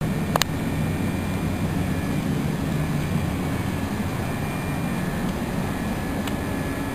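A steady low mechanical rumble, with two sharp clicks about half a second in.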